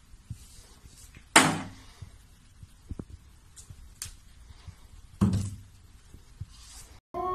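Plastic toiletry bottles being knocked over and off a tiled bathroom ledge by a cat's paw: two loud clattering knocks, about a second and a half in and about five seconds in, with a few light taps between.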